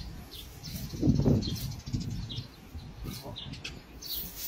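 Small birds chirping repeatedly, with a brief louder low rumble about a second in.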